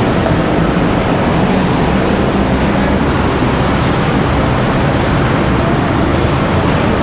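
Steady, loud vehicle rumble and rushing noise, unchanging throughout, with a faint thin high whine from about two seconds in to past the middle.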